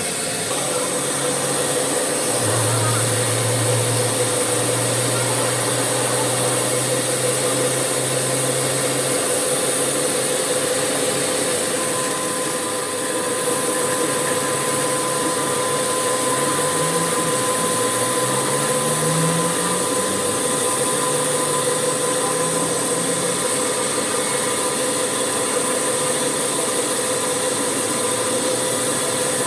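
Steady machinery noise with a constant hum and hiss, like factory woodworking machines running. Some lower tones shift about midway through.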